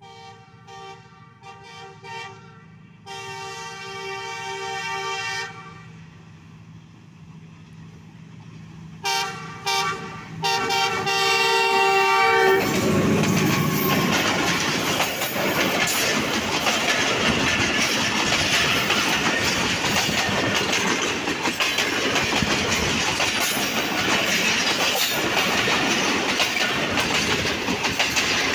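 Diesel locomotive's multi-note horn sounding two groups of short toots, each ending in a long blast, as the train approaches. Then the passenger train passes close at speed in a loud, steady rush of wheel-on-rail noise.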